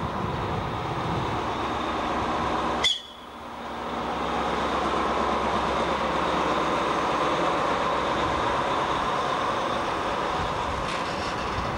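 DR1A diesel multiple unit passing close by: its diesel engine and its wheels on the rails run steadily. About three seconds in, a sharp click and a sudden dip cut the sound, then the noise of the passing cars builds back up and runs on steadily.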